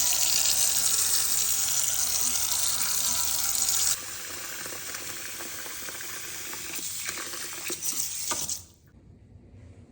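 Water running from a tap into a sink, loud at first and dropping sharply about four seconds in. A few knocks sound near the end, just before the water stops.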